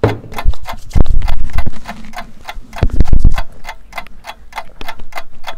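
Steady ticking of a countdown clock, about four ticks a second. Two stretches of heavy low thuds come around one and three seconds in, louder than the ticking.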